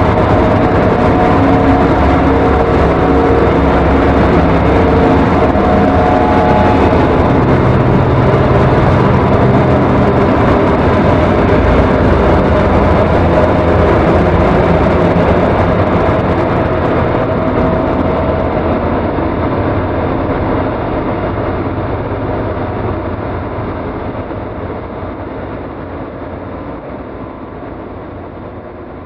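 Dark ambient noise music: a dense, grinding noise drone with a few held low tones beneath it. From about halfway it grows duller and fades steadily.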